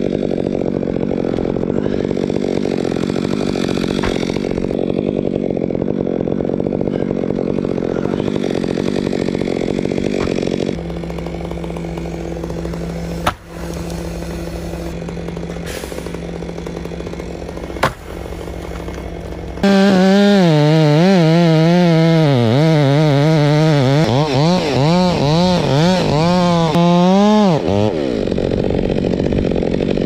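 Chainsaw high in a fir tree, running steadily. Later it goes to full throttle in a cut for about eight seconds, its engine pitch dipping and recovering as the bar loads, then drops back to a steady run. In a quieter stretch in the middle there are two sharp knocks.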